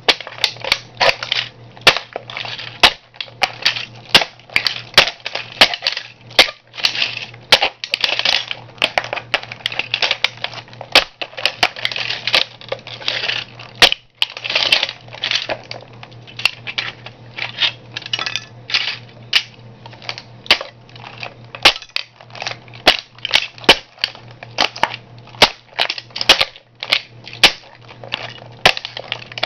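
Toy model car being crushed underfoot by a shoe: a dense, irregular run of sharp cracks and snaps as its plastic and metal parts break, over a steady low hum.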